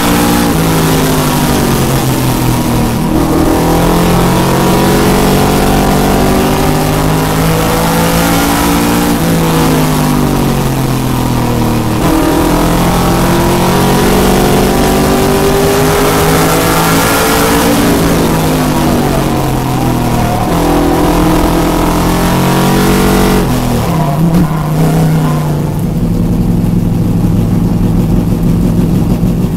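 Race car engine heard loud from inside the car under racing load, its pitch climbing as it accelerates and falling as it slows, over and over, with a steady hiss of wind and road noise. Near the end the engine drops to a lower, steadier note.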